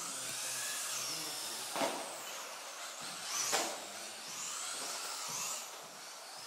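Electric motors of radio-controlled karts whining, the pitch rising and falling as they accelerate and brake around the track. Two sharp knocks, about a second and a half apart, stand out as the loudest sounds.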